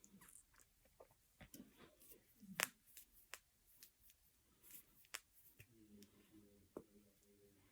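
Finger joints and knuckles cracking: a handful of sharp single pops at uneven intervals, the loudest about two and a half seconds in.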